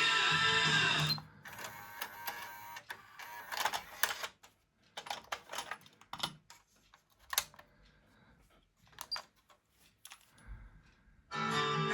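Irregular mechanical clicks and clunks from a Pioneer KEH-P6600R cassette head unit as it is operated, after the music playing through it cuts off about a second in; the music comes back near the end.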